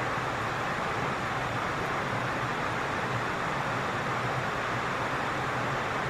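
Steady, even rushing of flowing stream water, unbroken.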